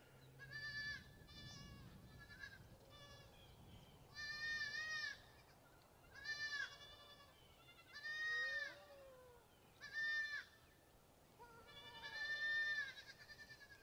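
Goat kids bleating repeatedly, about nine high-pitched calls each under a second long, with a few fainter, lower bleats among them.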